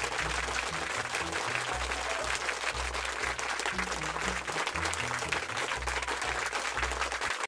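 Applause with background music underneath, a steady bass line of low notes. The clapping holds steady throughout and cuts off suddenly at the end.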